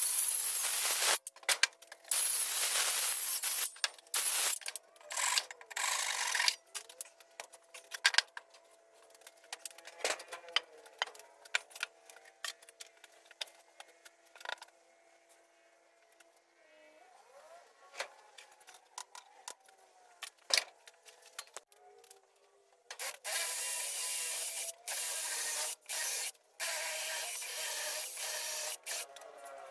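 Sped-up time-lapse audio of woodworking on a timber anvil stand: chopped, high-pitched bursts of tool noise with many rapid clicks and knocks. There is a long noisy stretch near the start and another about three-quarters of the way through.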